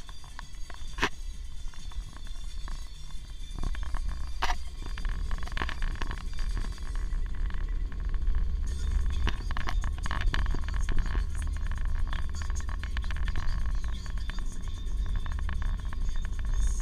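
Car in motion heard from inside the cabin: a steady low rumble of engine and tyre road noise, with scattered small clicks and knocks, growing a little louder about four seconds in.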